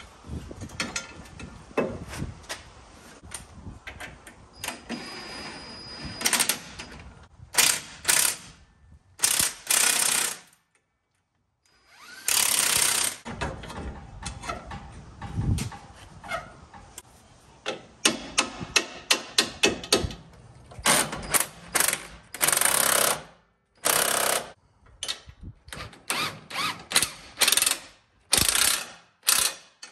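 Snap-on cordless impact wrench hammering in many short bursts and a few longer runs of about a second, driving the bolts that fasten the new rear knuckle to the lower control arm.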